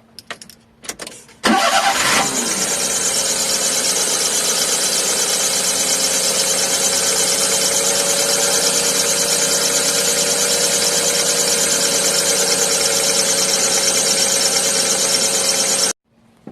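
A Daihatsu Hijet kei truck's 660 cc three-cylinder engine is started about a second and a half in after a few faint clicks, then runs steadily with a whine held through it: the under-seat noise that the owner traces to the air-conditioner (cooler) belt. The sound cuts off abruptly near the end.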